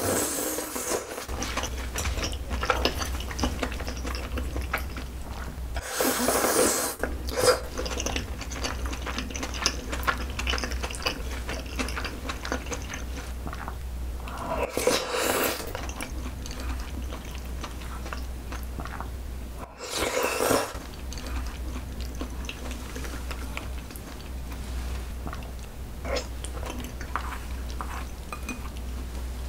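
Close-miked chewing and slurping of noodles in a thick rosé sauce, with louder slurps near the start and about 6, 15 and 20 seconds in. Chopsticks and a ceramic bowl clink now and then, over a steady low hum.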